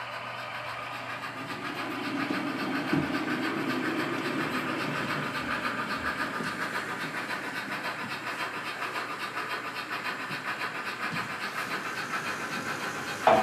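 HO scale Märklin model trains running on the layout: a steady mechanical whirr and rail noise with a fine rapid rhythm, swelling a little a few seconds in, then a brief sharp sound near the end.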